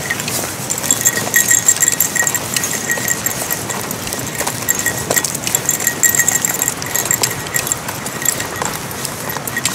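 Footsteps crunching along a gravel dirt track, with the small dog's feet pattering alongside. A thin, high, rapidly repeated ticking tone comes and goes behind the steps.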